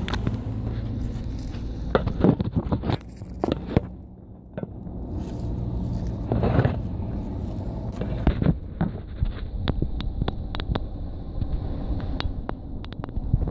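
Scrapes and clicks of a phone camera being handled and set down on stone paving, over a steady low rumble.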